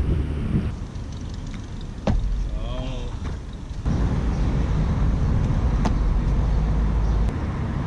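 Low rumble of road traffic, heaviest in the middle of the stretch, with a few sharp taps of feet on the pavement about two and six seconds in.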